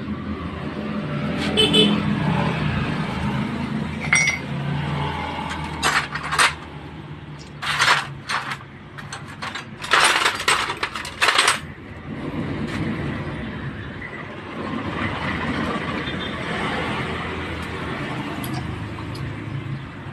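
Metal motorcycle engine parts clinking and knocking as the split crankcase and its transmission gears are handled: a few sharp metallic clinks, then a quick cluster of them about halfway through, over a steady low hum.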